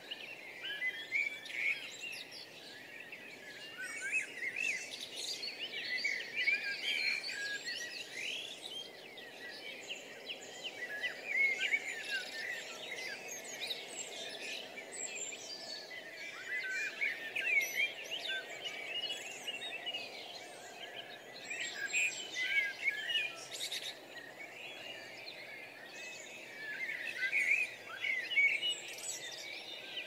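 Many small birds chirping and singing at once, a dense, constant tangle of short high calls and trills with no single bird standing out.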